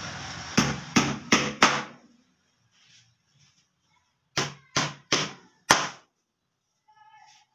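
Hammer driving small nails through a wooden molding border into a bed panel. There are two quick runs of four sharp blows, about three a second, with a pause of a few seconds between them.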